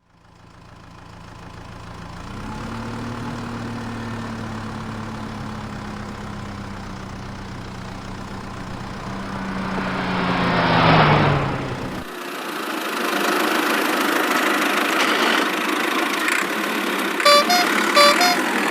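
Cartoon vehicle engine sound effect: a steady engine hum whose pitch drops under a swelling whoosh about eleven seconds in. It cuts to a different, higher engine-like rumble, with two short beeps near the end.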